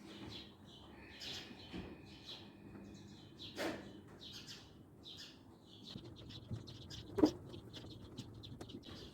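Small birds chirping over and over in short high notes, with a held whistle early on. A knock sounds about three and a half seconds in and a sharper, louder one just after seven seconds.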